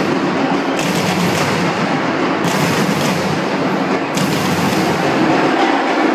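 Loud live carnival percussion: a large samba-style drum section playing a dense, driving beat. Its high, hissy part drops out and comes back a few times.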